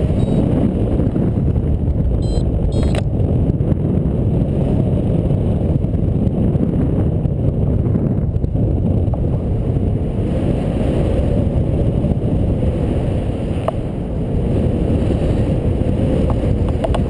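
Wind rushing over the microphone of a camera carried by a paraglider pilot in flight, a steady low buffeting noise, with a couple of faint clicks about two to three seconds in.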